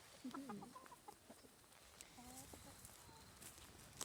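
Chicken clucking quietly: two short calls, the first dropping in pitch just after the start, a second about two seconds later.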